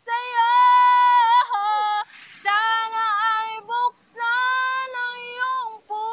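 A woman singing a Tagalog love ballad unaccompanied, in a high voice with long held notes, in several phrases broken by short pauses.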